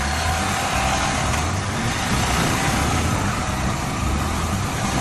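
Royal Enfield Himalayan's single-cylinder engine running steadily on the move, under a constant rushing road noise.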